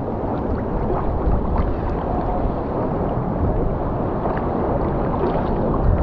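Sea water sloshing and splashing around a swimmer: a steady deep wash with a few small splashes.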